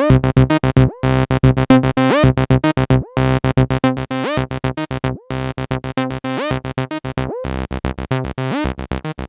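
MAM MB33 Retro analog bass synthesizer, a TB-303 clone, playing a fast sequenced acid bassline of short notes, some of them sliding up in pitch. It sounds "ganz schön fett" (really fat).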